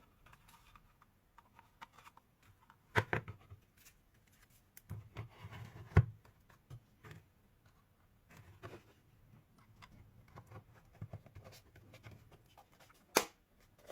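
A rebuilt 12 V drill battery pack being fitted into its plastic housing by hand. Faint scraping and rubbing of plastic, with a few sharp clicks or knocks, three of them louder than the rest.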